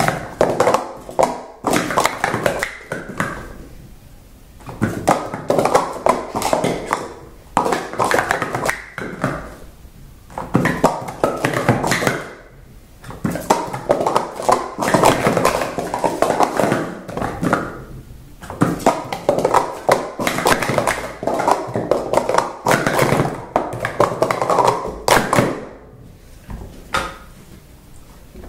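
Speed Stacks sport-stacking plastic cups rattling and clacking on a mat as they are rapidly stacked up and down, in fast runs of taps lasting several seconds each with short pauses between, going quieter near the end.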